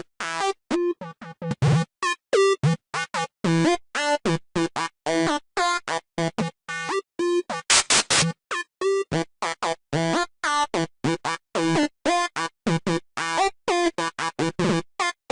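Sylenth1 software synthesizer playing a fast staccato psytrance lead line, about five short notes a second. The tone keeps changing as the oscillator is switched through different waveforms, pulse wave among them.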